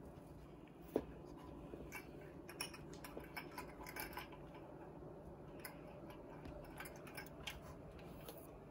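Light clicks, taps and faint rustling as items are handled and moved about in a guinea pig cage, including a small wooden stool, with one sharper knock about a second in.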